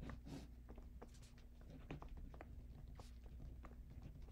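Faint scratches and taps of a marker pen writing on paper, coming as many short irregular strokes over a low steady hum.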